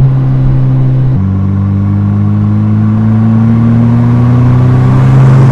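2023 Mercedes-AMG SL 43's turbocharged 2.0-litre four-cylinder engine pulling under load; about a second in its pitch drops with a gear upshift, then climbs slowly as the car gains speed.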